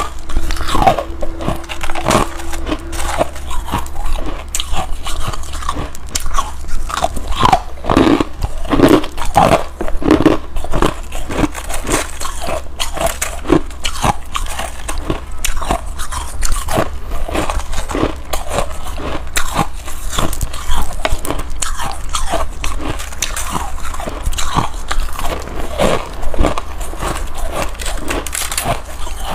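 Close-miked biting and chewing of hard freezer frost: packed ice crystals crunch between the teeth in quick, irregular crunches that go on without a break.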